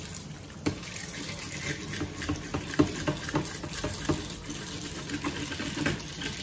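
Tap water running into a plastic tub while a plastic fish scaler scrapes the scales off a Russell snapper, giving irregular scraping clicks over the steady splash of the water.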